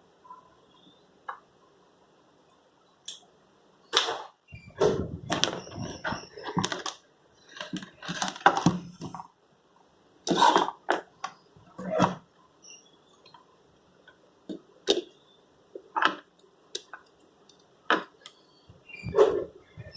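Irregular clicks, taps and scrapes of small plastic headphone parts being handled and worked on, in clusters with quiet gaps between.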